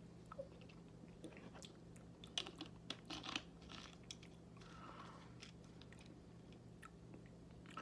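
Faint mouth sounds after a swig of soda from the bottle: swallowing, lip smacks and small wet clicks, clustered from about two to three and a half seconds in, over a low steady room hum.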